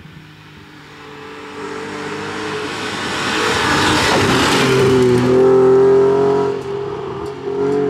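BMW E36 rally car coming up at speed and passing, the engine held high in the revs, with a rush of tyre and road noise loudest as it goes by. The engine note drops briefly about seven seconds in, then picks up again.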